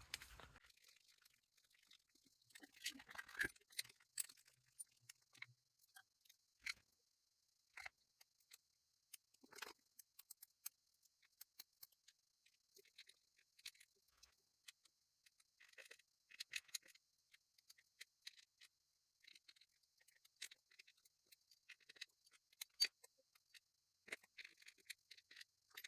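Faint, scattered clicks and clinks of small metal parts being handled while a disc detainer padlock is taken apart and its discs and spacers are laid out.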